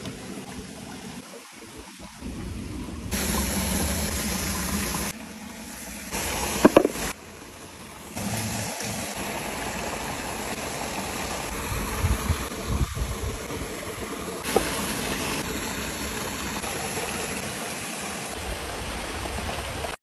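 A woodland stream running steadily, its level jumping abruptly several times from shot to shot, with a few short sharp knocks and clinks of handling food and utensils.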